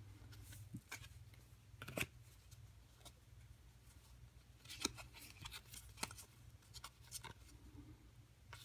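Game cards being sorted by hand: scattered light clicks and snaps as cards are slid and tapped against each other, with a few sharper clicks about two and five seconds in, over a faint steady low hum.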